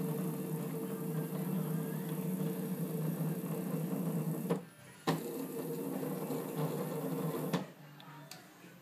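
Stepper motors driving an axis of a 7x10 CNC mini lathe, a steady mechanical hum that stops for about half a second midway, starts again with a click and cuts off with a click near the end. From the sound, the builder suspects some binding in that axis, though he is not sure.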